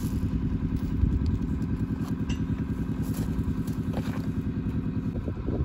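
An engine idling steadily with a fast, even pulse, with a few light clicks over it.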